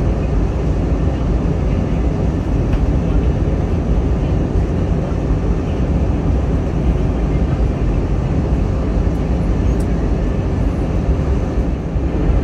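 Steady cabin noise inside an Airbus A320-family jet airliner on its descent: the deep rumble of the engines and the rush of air over the fuselage, even throughout.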